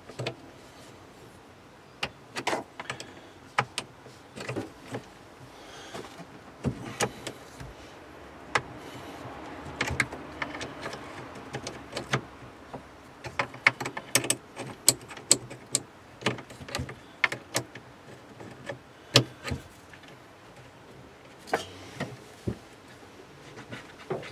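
Metal spanner clicking and clinking on a car battery's terminal bolt and clamp as the connection is worked: irregular sharp clicks, coming thicker and faster in the middle stretch.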